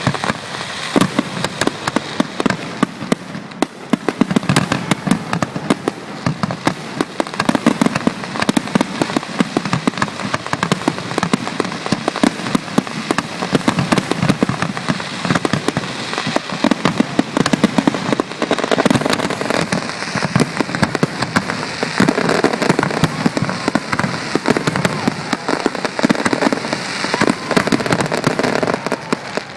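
A fireworks display going off in quick succession, with a dense, continuous run of bangs and crackles, many reports a second. It is picked up through an iPhone microphone.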